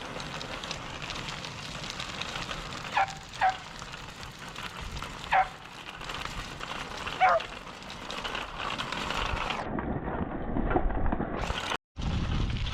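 A dog barking four times, single short barks a second or two apart, over steady outdoor background noise.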